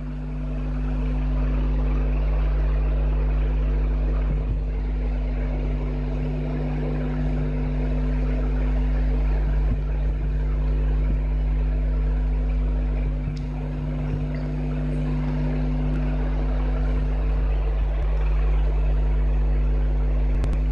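A steady electrical hum with a constant rushing noise over it, unchanging throughout.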